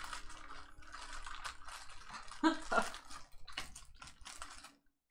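Clear plastic packaging bag crinkling and rustling as it is handled and pulled open, a dense run of crackles. About two and a half seconds in, a short voice sound rises above it.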